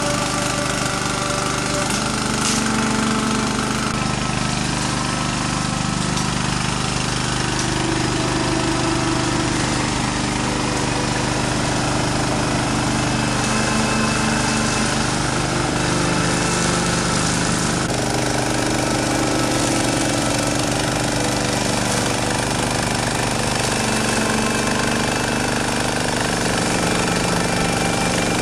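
Small gasoline engine of a walk-behind mower running steadily with a rapid pulse, cutting tall grass and brush, its pitch shifting a little as it takes up load.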